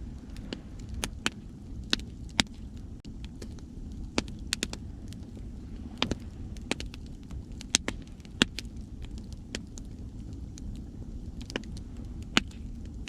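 Wood fire crackling, with irregular sharp pops and snaps, a few much louder than the rest, over a steady low rush of sea waves.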